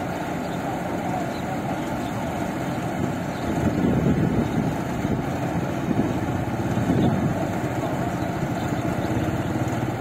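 New Holland rice combine harvester running steadily with its unloading auger turning, pouring grain into a lorry. The din swells louder about four seconds in and again about seven seconds in.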